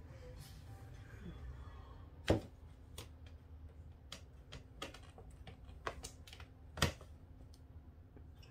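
Scattered sharp taps and knocks from cats playing on a carpeted cat tree, pawing at its hanging toys and bumping the posts and platforms. Two of the knocks, about two seconds in and near seven seconds in, are much louder than the rest.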